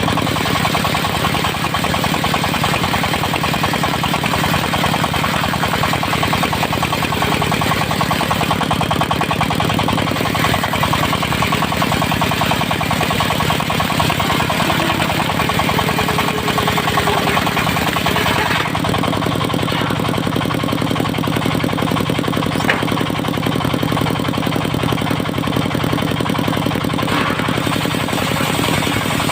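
Diesel engine driving a portable circular-saw sawmill, with the blade cutting through dry teak. About two-thirds of the way through, the cutting noise drops away and the engine runs on steadily.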